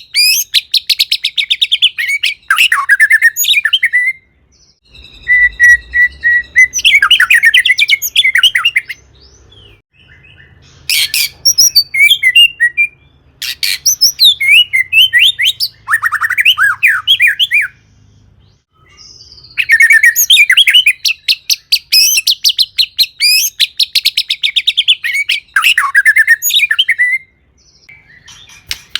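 White-rumped shama (murai batu) singing loudly in full song: long bursts of fast rattling trills mixed with varied whistled phrases, broken by short pauses every several seconds.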